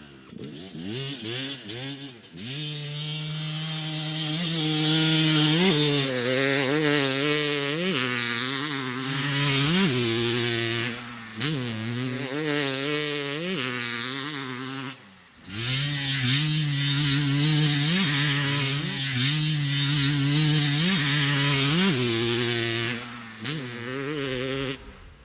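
Dirt bike engine revving hard and shifting through the gears, its pitch climbing and dropping again and again, with a brief break about fifteen seconds in.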